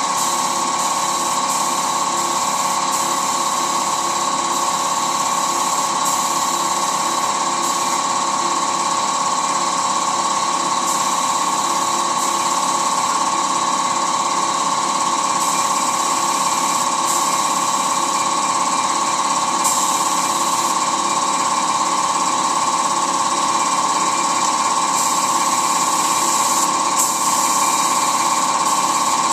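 Air compressor running steadily, with the hiss of a paint spray gun starting and stopping over it in repeated bursts as a dust coat of paint goes onto the van.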